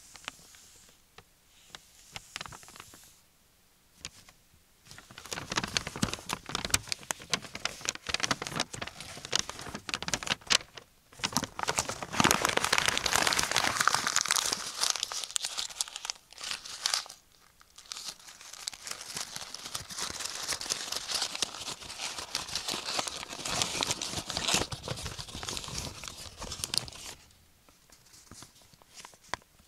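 Paper being crumpled and torn up close: a few light rustles at first, then long stretches of dense crackling crinkles, broken by two short pauses.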